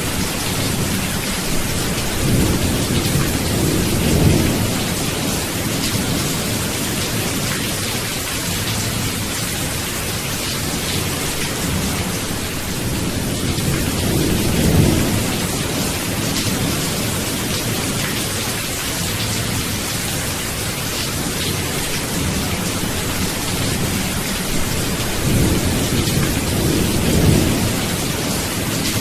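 Steady heavy rain with rolling thunder, three low rumbles swelling up: near the start, in the middle and near the end.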